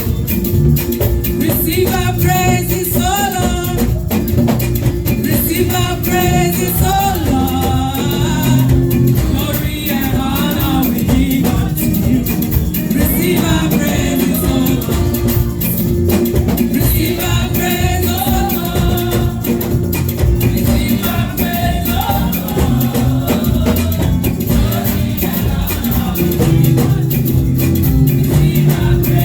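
Live church band playing an upbeat praise song with shaker and guitar, with singing over it.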